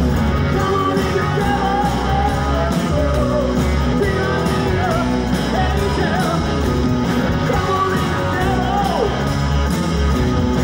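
Live rock band playing loudly: electric guitars, bass and drums, with a lead singer.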